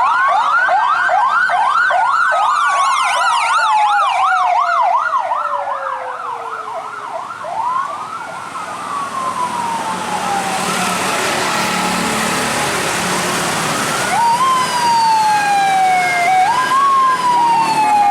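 Tour bus's electronic siren horn sounding a fast rising-and-falling yelp, about three sweeps a second, for roughly seven seconds, with long falling tones laid over it. Then, after a lull, slower wails that jump up and slide down, about every two to three seconds, near the end.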